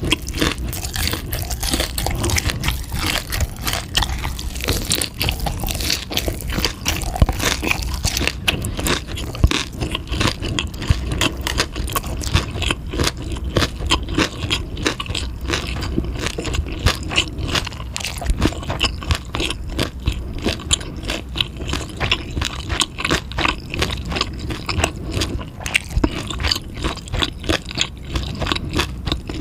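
Someone chewing and biting food close to the microphone: an unbroken stream of small wet crunches and clicks.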